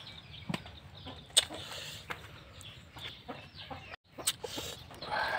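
Chickens clucking, with scattered light clicks and taps and a brief dropout about four seconds in.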